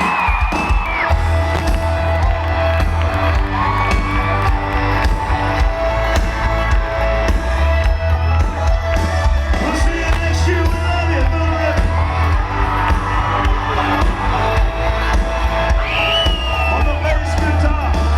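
Live country band playing through a concert PA, with a heavy kick drum and bass driving a steady beat that kicks in about a second in. Audience whoops and cheers rise over the band.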